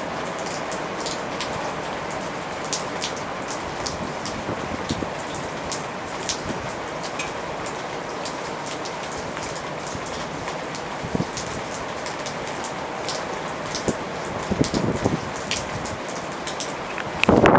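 Steady rain falling in a storm, with many sharp drops ticking on a surface, and a couple of louder rushes near the end.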